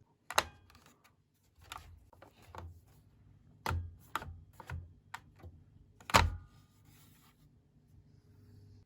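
Irregular knocks and clicks of hard objects being handled and set down, with two louder thunks, about half a second and about six seconds in.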